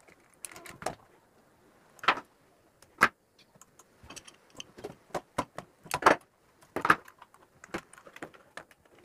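Irregular clicks and light knocks from handling wires on a plastic switch-board plate and driving a screwdriver on its terminal screws, while the blue neutral wire is fastened. Sharper taps come about 2, 3, 6 and 7 seconds in.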